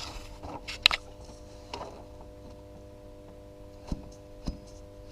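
A few short, light clicks and knocks as the VAZ 2108/2109 water pump is rocked and turned by hand to check it for play, over a steady faint hum. The pump shows no play.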